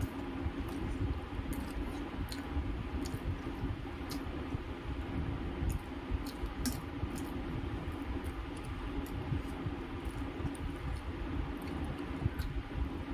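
Close-up eating by hand: chewing and lip smacks, with fingers squishing rice against a steel plate. Scattered soft wet clicks over a steady low hum.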